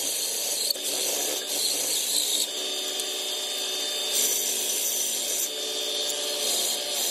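Bench belt sander grinding a steel knife blade: steady motor hum under the hiss of steel on the abrasive belt, which swells and eases as the blade is pressed on and lifted.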